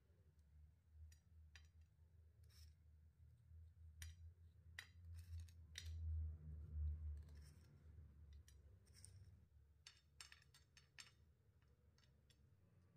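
Faint scattered clicks and taps of kitchen utensils and dishes being handled, with a low rumble swelling briefly in the middle.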